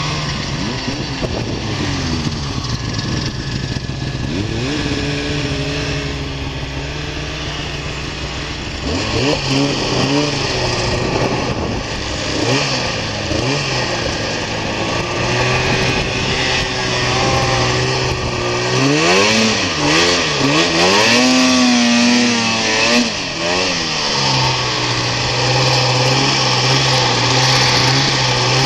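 Snowmobile engines running: a steady idle broken by throttle blips, then a stretch of quick revving up and down about two-thirds of the way through, and a steady run again near the end.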